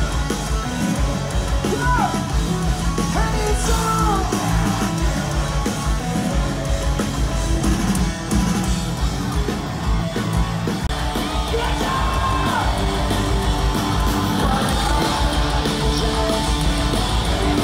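Live rock band playing through a club PA, heard from within the crowd: electric guitar and drums with a singer's voice over them.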